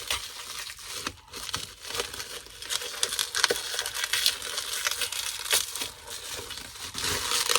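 Packaging crinkling and crunching in irregular handfuls as a small film camera is wrestled out of it, with a busy scatter of sharp crackles.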